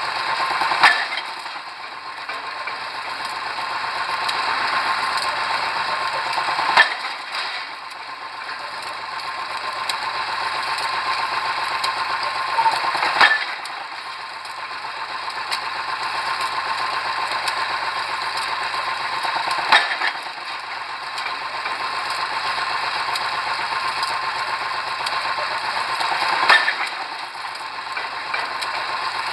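Pile driver's drop hammer striking the pile five times, about every six and a half seconds. Between blows the rig's engine runs steadily and grows louder as it hauls the hammer back up.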